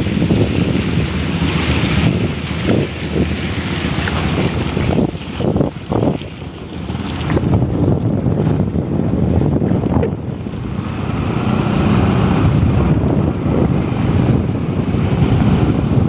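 Wind buffeting the microphone on a moving motorcycle, a steady rumbling rush of air and road noise, easing briefly about five to six seconds in.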